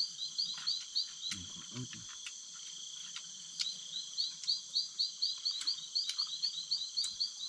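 Night-time forest chorus: a steady high-pitched insect drone with a fast chirping call repeating about four times a second. The chirping breaks off for about two seconds a little over a second in, then resumes. A few light clicks are scattered through it.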